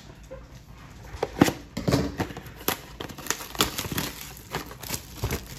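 Trading cards and their packaging handled by hand: a quick run of sharp clicks and taps with crinkling rustles, starting about a second in.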